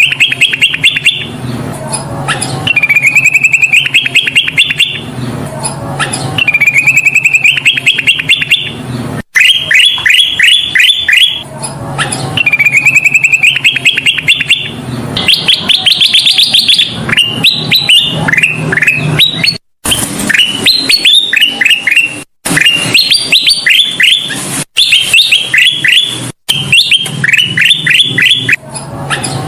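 Kutilang emas bulbul singing loudly and without pause: repeated phrases of rapid notes that climb in pitch, alternating with strings of quick downward-sliding notes.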